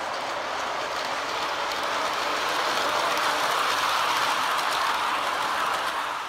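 MTH R33 model subway train running along three-rail track: a steady rolling whir of wheels and motors that swells as the cars pass close, around three to five seconds in, then drops off near the end.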